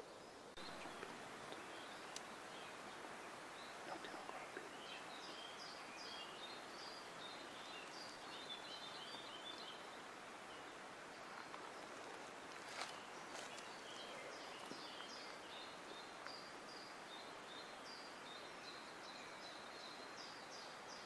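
Small songbirds chirping faintly: repeated short high chirps and trills over a steady background hiss, with a couple of sharp clicks.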